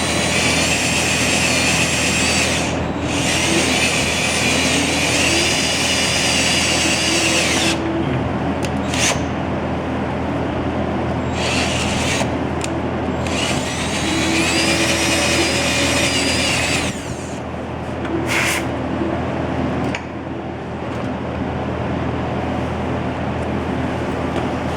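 Power drill running in several bursts of a few seconds each, a high whine that rises as each burst starts, over a steady low hum.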